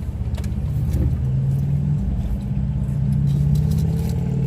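Steady low hum of a car's idling engine, heard from inside the cabin, with a couple of faint clicks about a second in.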